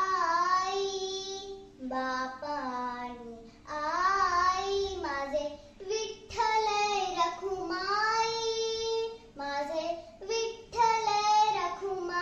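A young girl singing a Marathi bhajan solo, without accompaniment, in long held notes that glide up and down, with short breaths between phrases.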